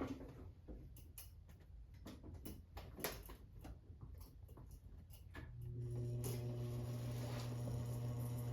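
Scattered clicks and knocks of handling. About five and a half seconds in, the 52-inch Supreme Mark III flush ceiling fan's motor powers up with a steady electrical hum that holds to the end.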